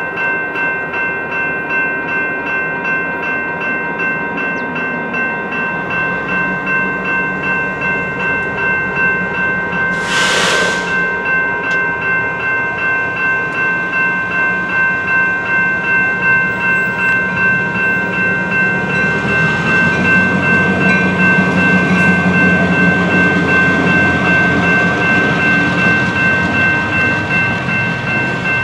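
General Signals Type 2 electronic railroad crossing bells ringing continuously in a quick, even rhythm. About ten seconds in there is a short hiss. From about two-thirds of the way through, the diesel engine of an approaching EMD GP38-2 freight locomotive rises as a low rumble under the bells.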